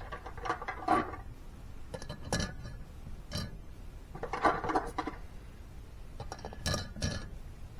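Metal valve springs clinking as they are set in place on a 5.3 LS cylinder head: several separate sharp clinks and knocks.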